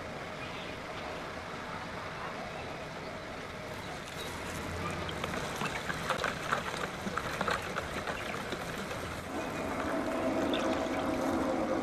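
A gloved hand swishes and sloshes through a bucket of green acid solution, stirring in urea until it dissolves. The liquid sounds begin about four seconds in. A steady hum joins in about nine seconds in.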